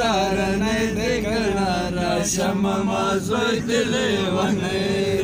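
Group of men singing together in a chant-like song, with a steady low rumble underneath from inside a moving vehicle's cabin.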